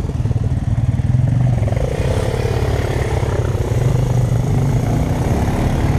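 ATV engine running steadily at low speed, heard close up from the rider's seat, its pitch sagging slightly about two seconds in.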